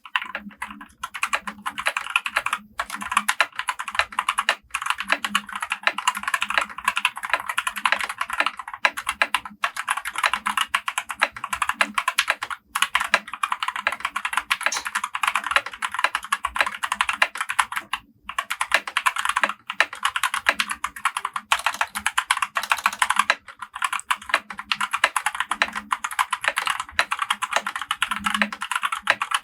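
Fast typing on a Tezarre TK61 Pro 60% mechanical keyboard with Gateron optical brown (tactile) switches: a dense, continuous clatter of keystrokes, broken by a few brief pauses.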